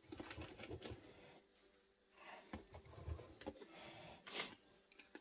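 Quiet clicks and crunches of dry cat kibble in a plastic tub as a hand stirs through it and a cat eats from it, with a brief rustle about four seconds in.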